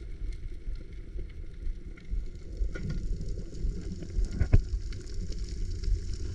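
Muffled underwater ambience: a steady low rumble with many scattered crackling clicks, one sharper click about four and a half seconds in.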